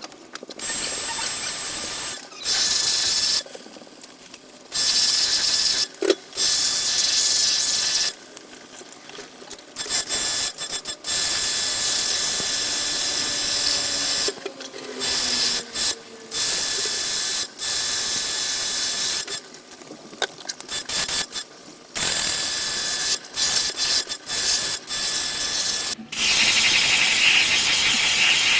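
High-pressure cleaning sprayer spraying in repeated bursts of one to a few seconds, each a loud hiss with a motor whine under it, starting and stopping abruptly. This is the high-pressure wash of the air conditioner's blower fan and evaporator coil.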